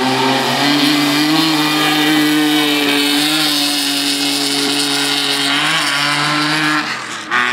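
Rally car engine at high revs under full throttle, holding a nearly steady note, then dropping away suddenly about seven seconds in.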